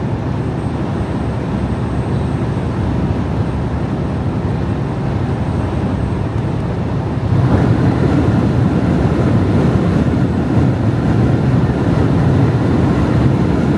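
Strong wind buffeting a moving semi truck's cab, over steady engine and road noise; the noise steps up louder about seven and a half seconds in.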